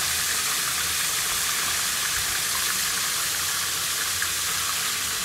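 Crab pieces frying in hot oil in a pan, a steady sizzling hiss, with a faint low hum underneath.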